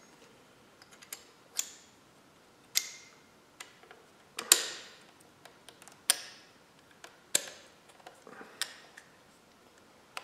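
Sharp metallic clicks and clinks at irregular intervals, roughly one a second, from a brake caliper and its pads being handled and fitted against a metal rotor guard bracket. The sharpest clicks ring briefly, the loudest about halfway through.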